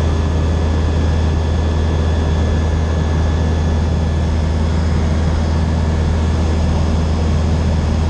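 Single-engine propeller light aircraft's engine and propeller droning steadily in cruise, heard from inside the cockpit, with a strong low hum.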